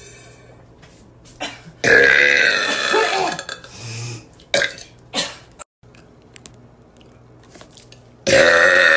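A young woman burping loudly: one long, drawn-out burp about two seconds in, two short sounds a little later, then another long burp starting near the end.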